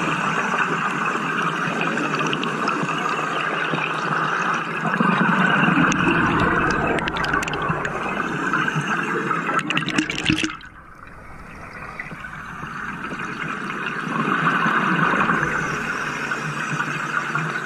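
Underwater rushing and bubbling of a compressor diver's exhaled air bubbles, heard close to the microphone, with a few clicks. About ten seconds in the noise drops away suddenly, then builds back up over the next few seconds.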